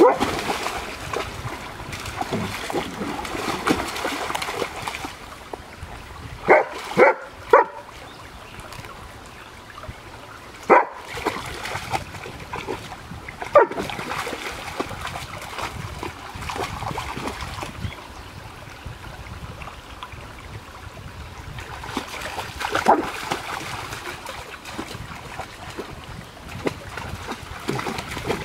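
A dog splashing through a shallow stream, with water churning around it, and barking in short calls: three quick barks about six and a half seconds in, then a few single barks.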